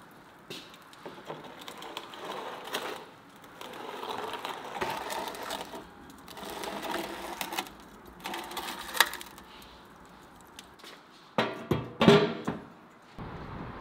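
A metal baking pan scraping across the floor of a wood-fired brick oven beside burning embers, in uneven rasping swells with scattered crackles, then several loud metal clanks near the end as the cast-metal oven door is fitted shut.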